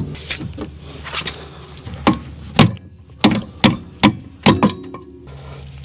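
About eight sharp metal whacks, unevenly spaced, as a screw threaded into a broken, rust-seized ABS wheel speed sensor is worked to pull the sensor's remains out of the wheel hub.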